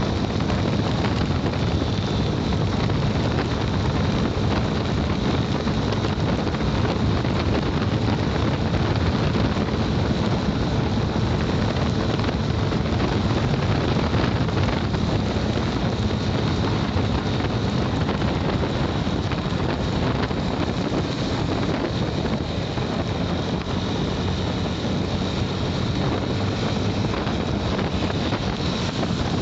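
Steady wind rush on the microphone of a motorcycle riding in the rain, with the motorcycle running underneath.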